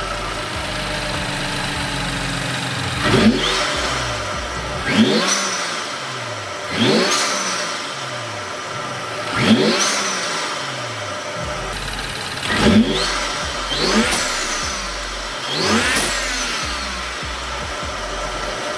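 BMW N55 3.0-litre turbocharged inline-six, breathing through a CTS Turbo cold-air intake, idling and blipped seven times. Each rev rises quickly and falls back to idle.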